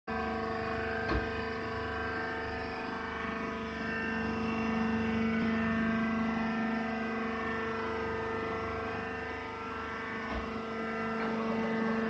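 Rice husk baler's hydraulic power unit running with a steady droning hum. Two brief knocks sound over it, about a second in and near the end.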